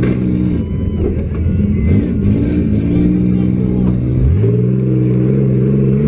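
Demolition derby car engines running hard and revving, one climbing steeply in pitch about four seconds in. A sharp bang comes right at the start.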